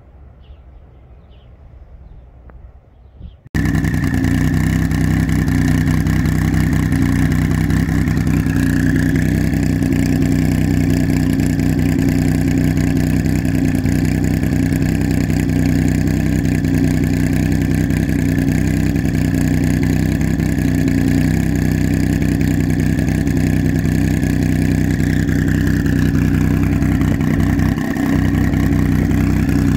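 A few seconds of quiet background, then the twin-turbo flat-six of a Porsche 911 GT2 with an aftermarket exhaust idling steadily, heard close to its tailpipes. A faint high whine rises about eight seconds in and falls away near the end.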